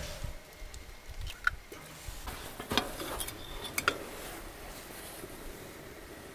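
A few light clinks and taps of a utensil against a camp cooking pot, scattered over a quiet background.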